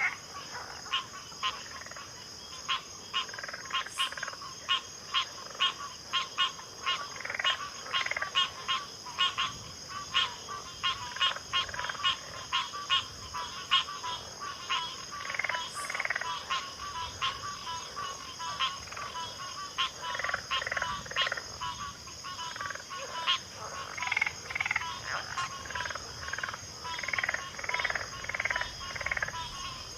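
Backwater frog chorus: many frogs calling at once, their short clicking croaks repeating rapidly and overlapping throughout, over a steady high-pitched buzz.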